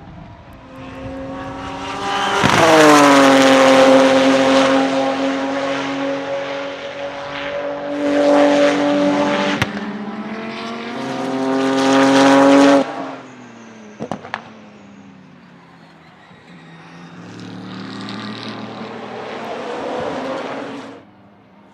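Porsche 997 GT2 RSR's 3.9-litre twin-turbo flat-six at full throttle on track. Its pitch drops sharply as it reaches its loudest, then holds steady. There is a sharp crack at a gearshift about ten seconds in; the engine cuts off abruptly near thirteen seconds with a short pop soon after, then builds again more faintly.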